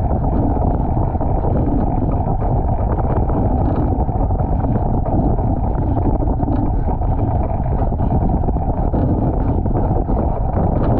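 Loud, steady wind buffeting the microphone aboard a foiling Moth sailing dinghy running downwind at about 40 km/h. The rush is heavy and low, with no whistle or separate knocks standing out.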